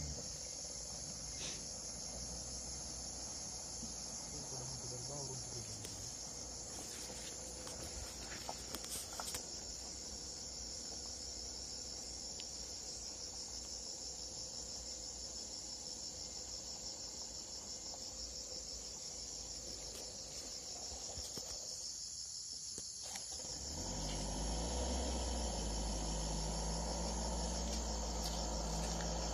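Steady, high-pitched drone of forest insects. Near the end a low engine rumble from the approaching car joins in and the overall level rises.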